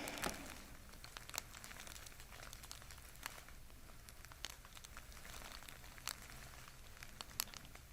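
Faint rustling and crinkling from movement on a chiropractic treatment table, with a few scattered soft clicks.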